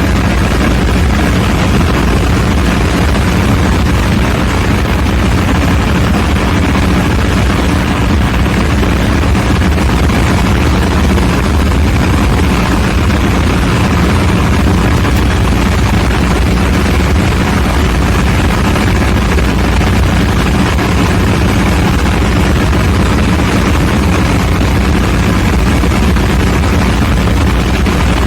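Diesel generator engine running at a steady speed: a loud, even drone that holds the same pitch and level throughout.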